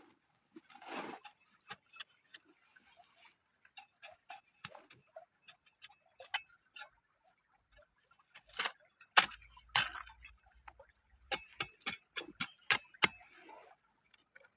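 Stones and gravel clicking and knocking irregularly as material is dug out of an earth bank, with a busier run of louder knocks and thumps in the second half.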